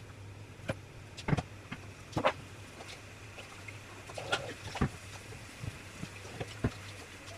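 Swiss chard leaves cooking down in a little hot oil in a frying pan, giving scattered pops and crackles over a steady low hum.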